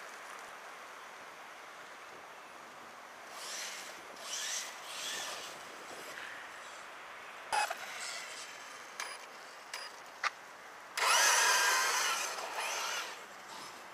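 Brushless electric motor of an RC truggy running on a 3S LiPo, whining in bursts as the throttle is worked. A few sharp clicks come about halfway through. The loudest burst starts about three seconds before the end, with a whine that rises and falls in pitch as the truggy speeds along the dirt path.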